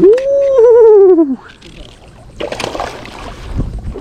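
A man's loud whooping 'woo', its pitch rising, then wobbling and falling away, lasting about a second and a half. Wind and water noise follow.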